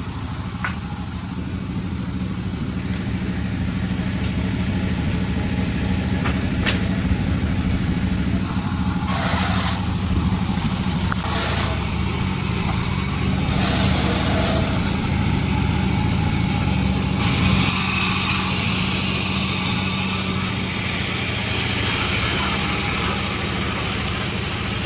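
Sawmill running with a steady engine hum under it, and the hiss of the blade sawing bayur wood. The hiss comes in a few short bursts in the middle, then runs on without a break over the last third.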